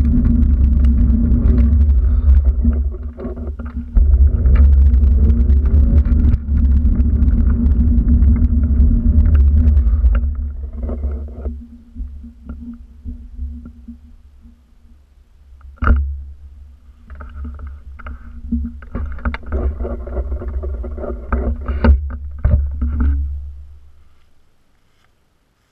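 Low rumble of wind and handling noise on a GoPro's microphone during a walk. It is loud for the first ten seconds, then weaker and patchy with a few sharp knocks, and dies away near the end.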